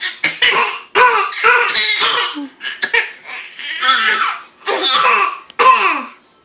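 Repeated fake coughs, each answered by a baby's laughter, several rounds back and forth, stopping just before the end.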